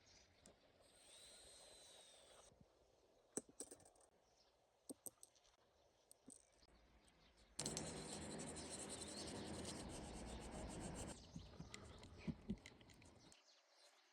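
A few light clicks, then about three and a half seconds of steady rubbing noise, then more scattered clicks.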